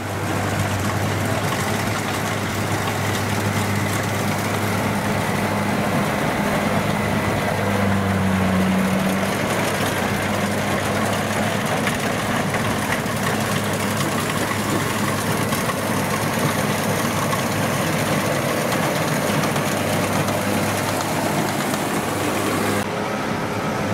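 Kubota combine harvester's diesel engine running steadily, a low drone with a rushing hiss above it, louder for a moment about eight seconds in; the hiss drops away near the end.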